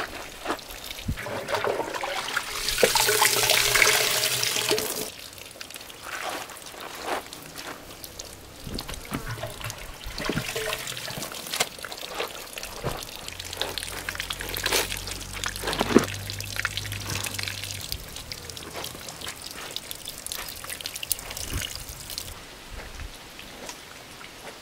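Water pouring for a few seconds, then scattered clicks and knocks.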